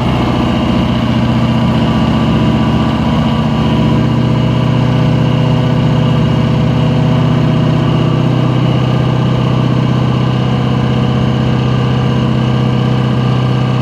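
5-litre Volvo Penta sterndrive engine idling steadily while antifreeze is pumped through its cooling system for winterization.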